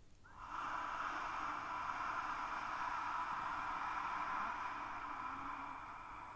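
One long exhaled breath hissed through a narrowed throat, the 'ocean sound' or hissing sound of ujjayi pranayama, made with the mouth open while mentally chanting 'hum'. It starts just after the beginning, holds steady and fades near the end.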